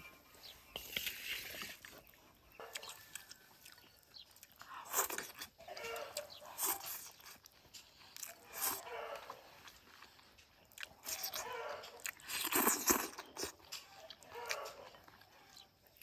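Close eating sounds: a person chewing and biting mouthfuls of a stew-and-rice meal, in irregular bursts every second or two.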